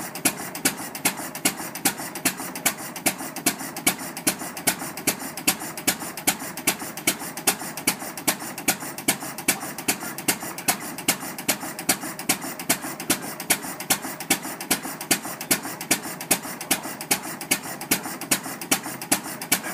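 1916 International Harvester Mogul 6 hp hopper-cooled single-cylinder stationary engine running, with a sharp, even beat a little over twice a second and lighter clatter between the beats.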